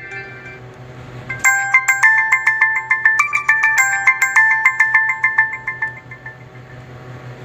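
Built-in ringtone of a TCL A1 phone playing: a fast melody of bright, chime-like repeated notes that starts about a second and a half in and fades out near the end, after the tail of the previous tone dies away at the start.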